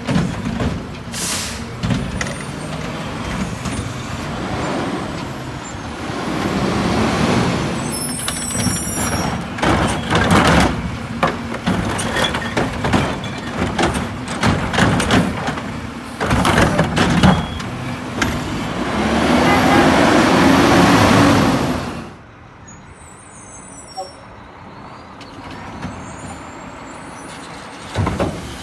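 McNeilus front-loader garbage truck working a Curotto-Can arm: the diesel engine revs with the hydraulics as a cart is lifted and tipped, with repeated clattering bangs as it is shaken out into the can, and a long air hiss near twenty seconds. About two-thirds of the way through, it drops to a quieter, more distant truck running.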